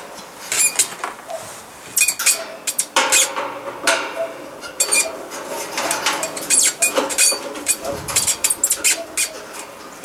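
Phillips screwdriver working the screws out of a kerosene heater's metal top lid: irregular metallic clicks, scrapes and light clinks, with a faint ringing of the sheet metal.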